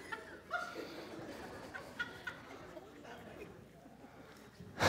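Congregation laughing and reacting, many voices at once in short scattered bursts, with a brief thump near the end.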